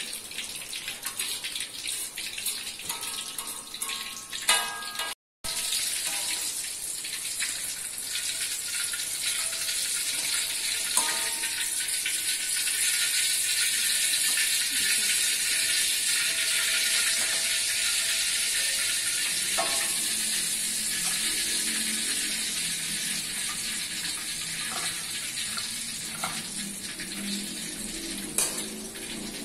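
Martabak deep-frying in hot oil in a wok: a steady sizzle that breaks off for a moment about five seconds in, then carries on louder. A few clicks and scrapes of a metal spatula and strainer against the wok are heard now and then.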